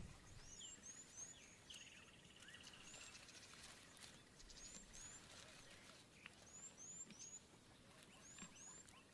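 Faint bush ambience: small birds give short high chirps in runs of two to four, with a brief trill about two seconds in.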